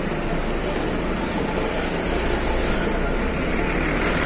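Coach bus engine running as the bus rolls slowly past at close range, a steady low hum that grows stronger about two seconds in.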